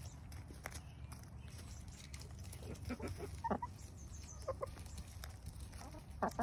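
A flock of backyard heritage hens clucking a few times while feeding, short scattered calls with a small cluster near the end, over a steady low background rumble.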